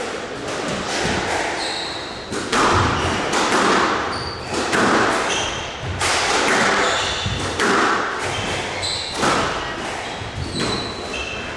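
Squash rally: the ball cracks off rackets and the walls about once a second from a couple of seconds in, each hit ringing in the hall, with short high squeaks from the players' shoes on the court floor.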